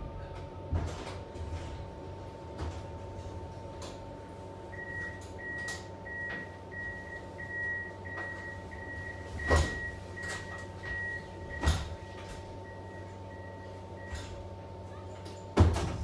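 Tram at a stop with its sliding doors open: a steady electrical hum, the door warning signal beeping about one and a half times a second for several seconds in the middle, and a few knocks, with the loudest thump near the end as the doors shut.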